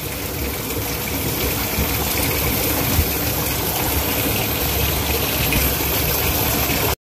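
Shallow rocky stream running over and around rocks: a steady sound of flowing water.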